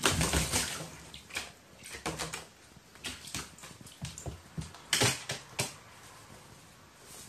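A crow bathing in a shallow plastic tray of water: wings beating and splashing, loudest in the first second, then several shorter bursts of splashing and flapping that die down near the end.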